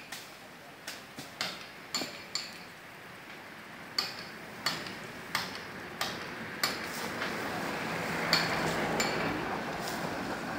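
Sharp, irregular knocks, about one or two a second, from a climber's hands and feet against a coconut palm trunk as he climbs down. From about seven seconds in, a rustling of dry palm fronds builds up alongside.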